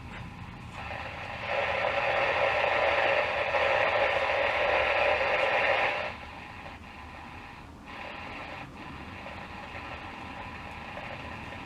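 Static hiss from a Pilot T510 radio's speaker as it is tuned across the shortwave band, with no station coming in. The hiss is loud for a few seconds, then drops to a quieter hiss with a couple of faint clicks.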